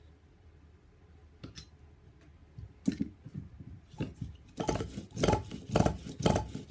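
Small nitro RC engine (DTX .18) being turned over by hand with its glow plug back in: a regular run of short metallic clacks, about two a second, that starts after a quiet first few seconds. The engine has good compression.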